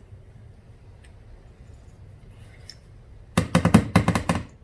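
A rapid run of about eight sharp knocks in just over a second, starting about three seconds in, like hard parts rapped against a workbench.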